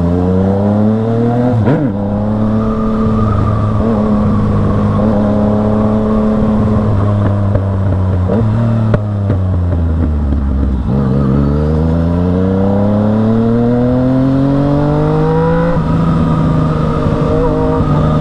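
Yamaha MT-09's three-cylinder engine running under load on the road: the revs drop at a gear change about two seconds in, hold steady for a long stretch, then climb for about five seconds to a second upshift near the end.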